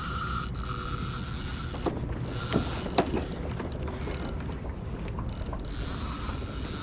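Spinning reel's drag clicking as a hooked fish pulls line off, stopping and starting several times. The angler judges the drag was set too loose.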